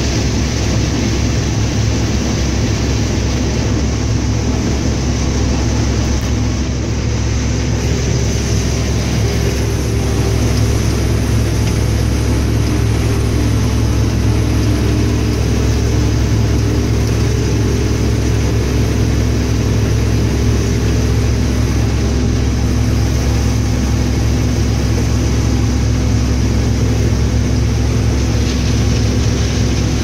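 New Holland TR88 combine running through corn, heard from inside its cab: a loud, steady drone of engine and threshing machinery with a few steady humming tones, getting a little louder about ten seconds in.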